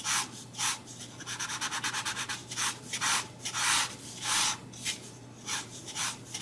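Marker nib stroking back and forth across newsprint, a scratchy rubbing. The strokes come one after another, some longer, with a quick flurry of short strokes about a second in.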